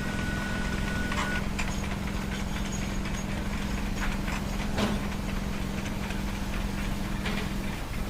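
A steady low machine hum, with a few sharp taps scattered through it and a thin high whine that stops about a second in.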